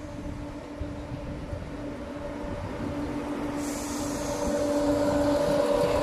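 Southern Class 171 Turbostar diesel multiple unit approaching and running along the platform: a steady engine drone that grows louder, joined about three and a half seconds in by rising wheel-on-rail noise as the train draws level.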